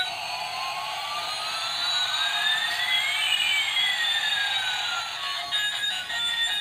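Battery-operated toy airliner's built-in electronic jet-engine sound effect: a hiss with one whistle rising and another falling, crossing about halfway through. The toy's built-in tune comes back near the end.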